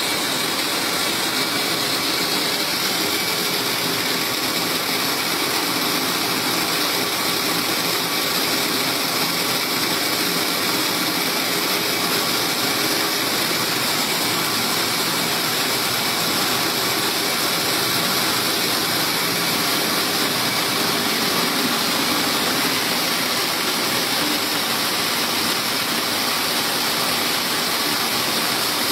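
Mung bean optical color sorter running: a steady, unchanging mechanical noise with a strong high hiss, as mung beans stream down its chutes.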